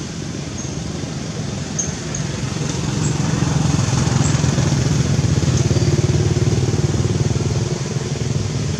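An engine running steadily with a low rumble, growing louder about three seconds in.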